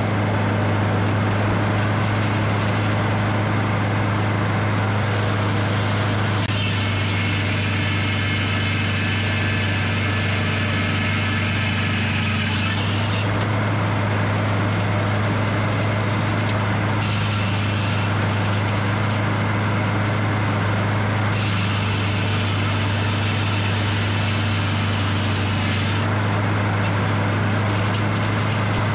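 Edmiston hydraulic sawmill running: its engine hums steadily throughout, while a higher-pitched hissing, whining noise comes and goes in several stretches of a few seconds each.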